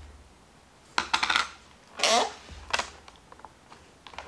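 Small hard plastic clicks and clacks from stamping tools: an ink pad being handled and a stamp positioner's clear hinged lid closed down to stamp an image. A quick cluster of clicks comes about a second in, a louder clack about two seconds in, then a few lighter taps.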